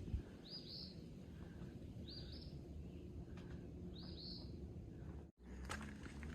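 A songbird repeating a short, high, rising phrase about every two seconds, three times, over a low outdoor rumble. The sound cuts out for an instant about five seconds in, and a few sharp clicks follow.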